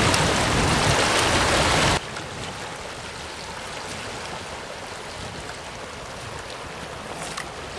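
River water rushing over a riffle: loud for about two seconds, then cutting off abruptly to a quieter, steady flow.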